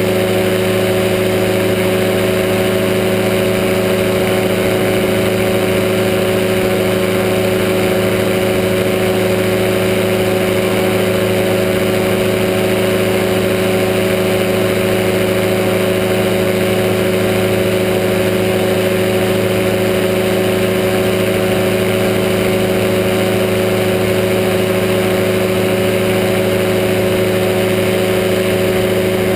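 Powered parachute's engine and propeller running at steady power in flight, heard close up from the craft's own onboard camera: a constant drone that holds one pitch, with a steady hiss over it.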